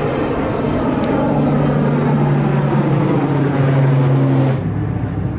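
Aircraft engines running loudly and steadily, a wide roar with a low steady drone under it. It cuts off abruptly about four and a half seconds in, leaving quieter outdoor noise.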